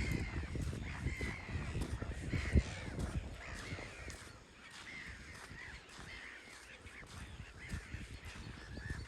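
A flock of gulls calling over and over, many harsh arched calls overlapping. A low uneven rumble runs under them for the first three seconds, with a sharp knock near the end of it.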